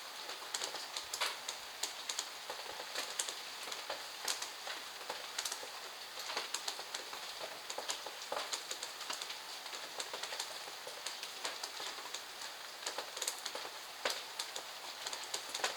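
Rain falling steadily, with many irregular drops tapping sharply on nearby hard surfaces.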